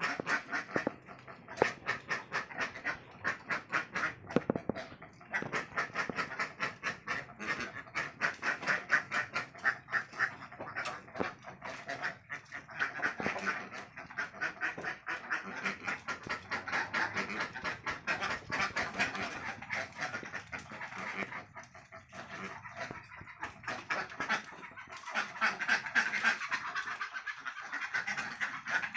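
A flock of ducks quacking, a rapid, continuous chatter of many overlapping calls.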